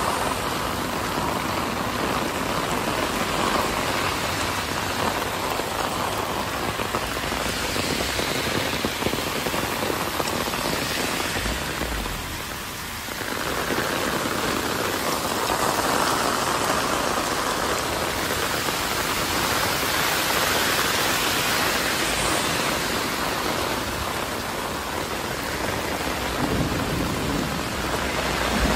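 Heavy rain pouring steadily onto a street and pavement, a dense even hiss that eases briefly about twelve seconds in.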